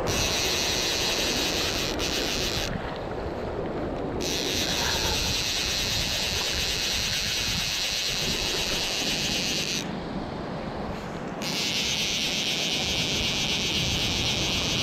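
Wind buffeting the microphone over waves washing on a shallow sand flat. A steady high hiss cuts out abruptly twice and comes back each time.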